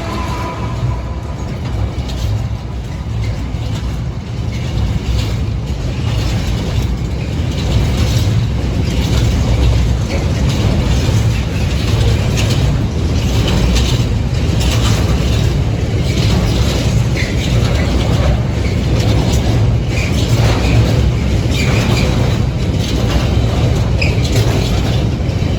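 A diesel train passing close by over a level crossing: a steady low rumble of engine and wheels with clacking of the wheels over the rail joints, getting louder about eight seconds in.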